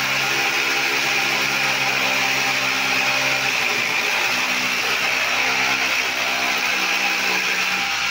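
Corded electric drill running steadily as it bores into a plastered masonry wall. The motor's pitch shifts a few times as the bit bites.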